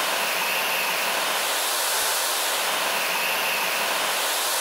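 Small see-through turbojet engine running steadily: a continuous rushing hiss with a wavering high whine over it.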